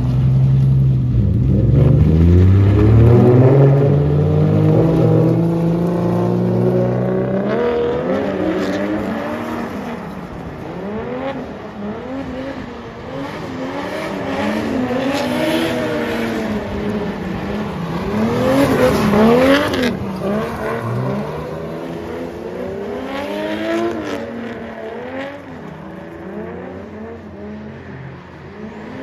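Two drift cars, one a Toyota Cressida, with engines revving up and down over and over as they slide in tandem. A car pulls away close by at the start, and there are short bursts of tire noise around the middle.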